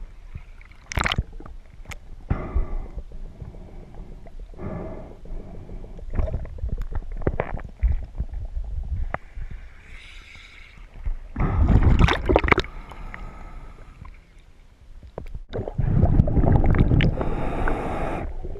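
Scuba diver breathing on a regulator underwater: irregular rushes of exhaled bubbles gurgling and rumbling, loudest about eleven and sixteen seconds in, with a softer hiss of inhaled air between.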